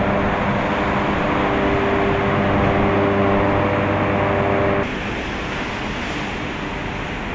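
Large electric axial fans of a tea-withering trough running, a steady hum of several tones over rushing air. About five seconds in the sound cuts to a slightly quieter, even rushing din of tea-processing machinery.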